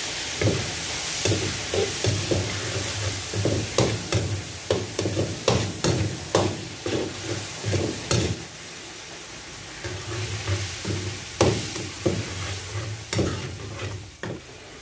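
Pork frying in a pan with a steady sizzle, while a spatula stirs and knocks against the pan about twice a second. The stirring pauses for a second or two about two-thirds of the way through, then starts again.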